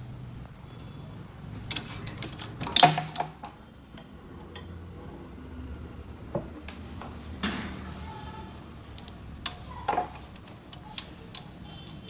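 Scattered clicks and knocks of handling around an opened amplifier chassis, the loudest about three seconds in, over a low steady hum.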